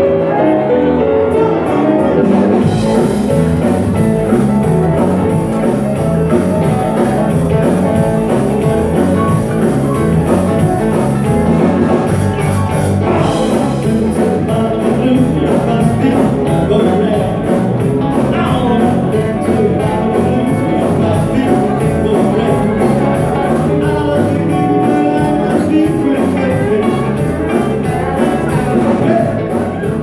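Live band playing with vocals: pedal steel guitar, electric guitars, bass guitar, drum kit and keyboard. The drums and full band come in about two seconds in, then keep a steady beat.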